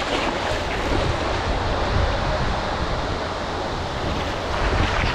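Small sea waves washing in over a shallow sandy shore, a steady rush of surf, with wind buffeting the microphone.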